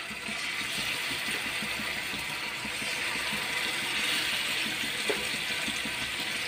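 Masala-coated fish steaks sizzling in hot oil in a shallow frying pan as they are laid in one after another. The steady sizzle grows a little louder as more pieces go into the oil.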